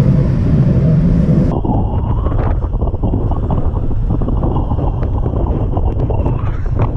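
Wind buffeting an action camera's microphone on a fast road-bike descent: a loud, steady rush. It turns duller about a second and a half in, with scattered light ticks.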